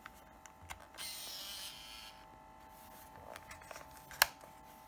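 Built-in electric motor of an Olympus SuperZoom 80G compact film camera whirring for under a second, about a second in, then fading away. Small handling ticks follow, and near the end a single sharp click from the camera.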